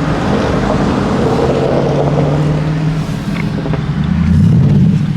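Car engine running, its pitch rising about four seconds in as it revs, loudest at that point.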